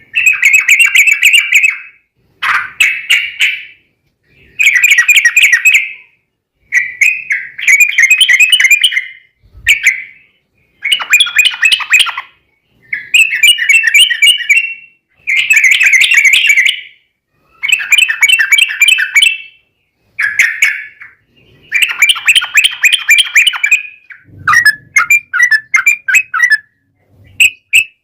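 Yellow-vented bulbul (trucukan) singing loud, rapid bubbly chattering phrases. Each lasts one to two seconds and they repeat about every two seconds. This is the long, rapid 'ropel' fighting song used as a lure to make other bulbuls answer.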